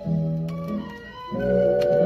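Music playing from a vinyl record on a JVC QL-F320 turntable, with a few faint clicks of surface crackle from the old record.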